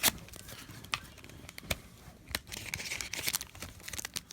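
Foil booster pack wrapper being torn open and crinkled, with a few sharp crackles and a rustling crinkle in the second half.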